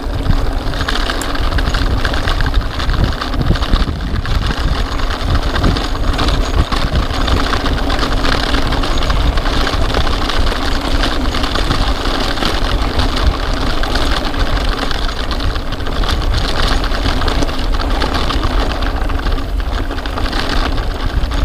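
Rockrider XC50 mountain bike ridden fast over a rough, rutted dirt track: a continuous loud rumble of tyres on dirt and gravel, with the frame and parts rattling and clattering over the bumps.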